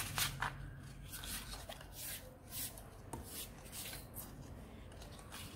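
Soft, scattered rustling and rubbing of craft paper being handled and slid on a cutting mat, with a few short crinkles.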